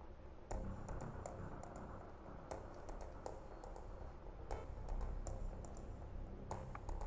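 Light, irregular clicks and taps of clear plastic lab dishes being handled, over a faint low rumble.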